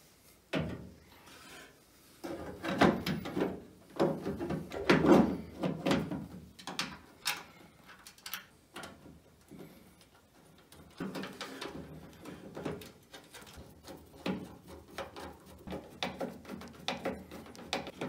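Metal door latch being worked into a steel car door shell: irregular clicks, knocks and scrapes of metal on metal, louder in the first few seconds, then a run of lighter clicks as the latch is fastened with a screwdriver.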